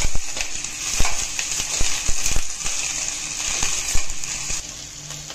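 Sliced onions, green chilies, garlic and ginger sizzling in hot oil in a stainless steel kadai, stirred with a metal spoon that scrapes and knocks against the pan several times. The sizzle eases and the stirring stops near the end.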